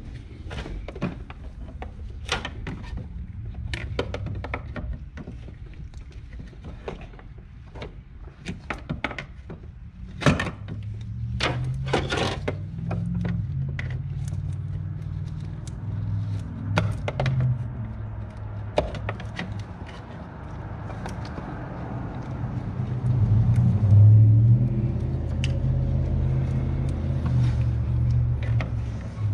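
Scattered metallic clicks and knocks of a long screwdriver prying and scraping at a part beside the brake master cylinder reservoir under the hood. A low rumble comes in partway through and is loudest a few seconds before the end.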